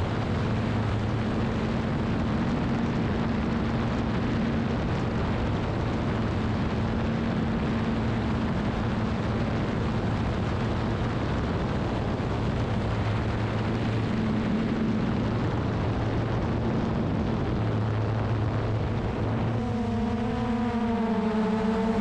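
Multirotor drone's propellers running with a steady rushing noise and a low hum. Near the end a higher hum with several tones joins in, its pitch wavering as the motors change speed.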